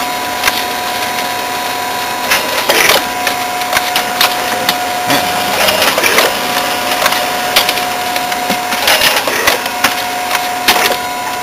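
Xerox A-Color 935 colour copier running a copy cycle with its covers off: a steady whine from its drive motors, the lower tone cutting out and restarting twice, with clicks and clatter from its mechanism every second or two.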